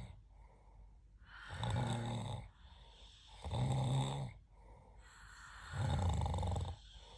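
Snoring: three loud, low-pitched snores about two seconds apart, with quieter breathing between them.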